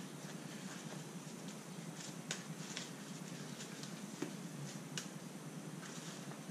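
Sleeved Magic: The Gathering cards being shuffled and handled, a scattering of light clicks and taps over a faint room noise.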